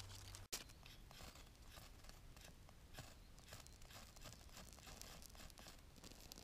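Faint knife carving and scraping at a small piece of wood or birch bark: many short, irregular strokes of the blade.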